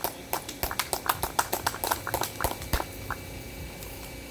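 A quick, irregular run of sharp clicks and taps, several a second, that stops about three seconds in.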